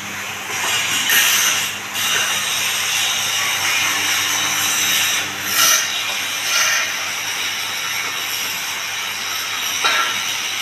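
Screw conveyor of a horizontal feed mixer running loaded, lifting animal feed up its tube: a steady mechanical rattling hiss over a low hum, with a few brief louder surges.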